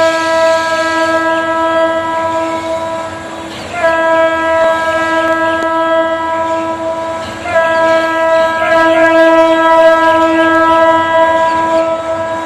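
Approaching express train's locomotive horn sounding three long, steady blasts, each three to four seconds, with short breaks between them.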